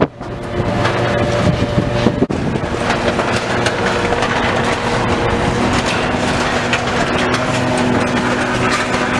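Heavy demolition machine's diesel engine running steadily, with continuous crunching and cracking of debris as the building is torn down.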